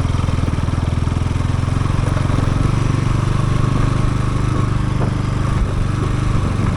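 Bajaj Pulsar NS200's single-cylinder engine running steadily while the motorcycle is ridden, under a steady rush of noise.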